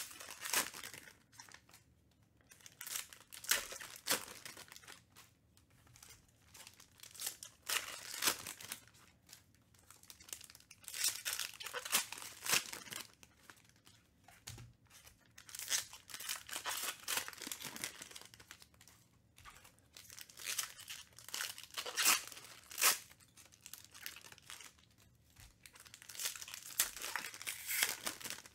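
Foil wrappers of Panini Prizm baseball card packs being torn open and crinkled, in irregular bursts, with cards being handled and stacked between them.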